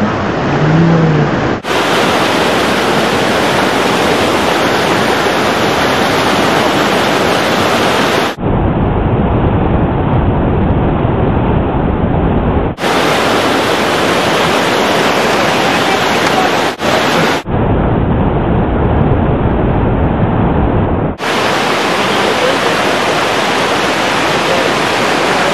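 Steady rush of river water tumbling over boulders in rapids and small cascades. Its tone changes abruptly several times, now fuller and deeper, now brighter.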